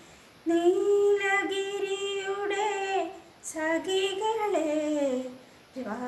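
A woman singing a Malayalam film song alone, without accompaniment: three long held phrases with gliding notes, each broken off by a short breath.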